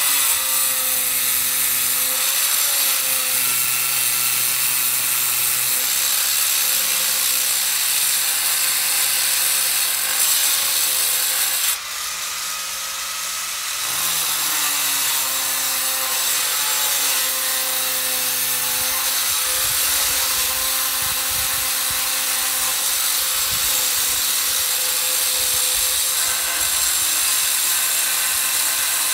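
Angle grinder with a diamond disc cutting dry through a granite slab: a steady high-pitched grinding whine whose motor pitch sags and recovers as the disc bites, easing off for about two seconds around twelve seconds in before cutting again.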